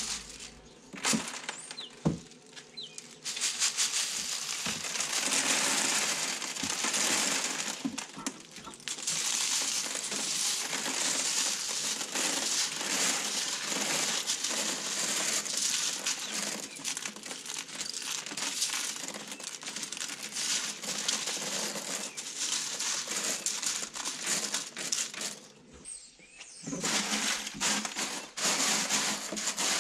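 Hundreds of small plastic bio balls (filter media) pouring from a plastic crate into a plastic sump filter box: a dense, continuous rattling clatter. It breaks off briefly near the end, then picks up again as the media is pushed and spread by hand.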